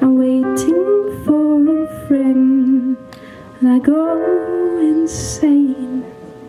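A woman singing long, held notes without clear words, over a piano accompaniment, in phrases with a short break about three seconds in.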